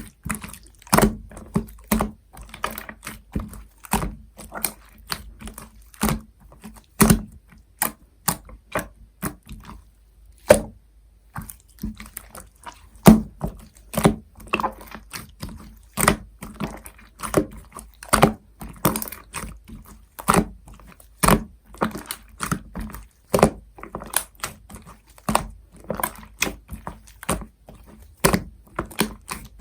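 Pink clear slime being kneaded together with scoop clay by hand, giving irregular sharp clicks and pops, one to three a second, with a brief lull about ten seconds in.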